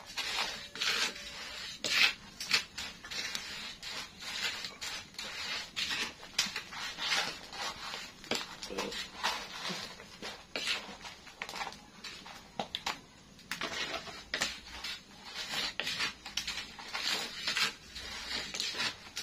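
Spatula scraping and stirring krupuk (crackers) in a frying pan over a wood fire: repeated, irregular rasping strokes, roughly one or two a second.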